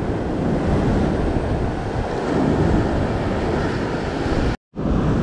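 Ocean surf washing and breaking against a rock ledge, with wind buffeting the microphone. The sound cuts out abruptly for a moment about four and a half seconds in, then the surf and wind resume.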